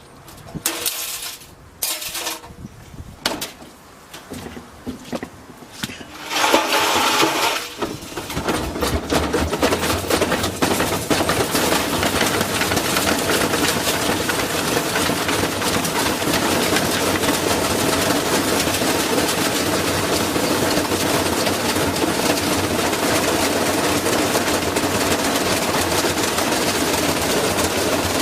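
Washing machine: a few knocks and clicks, then about six seconds in the drum speeds up into its spin, and the machine runs loud and steady with a dense rattle as it shakes.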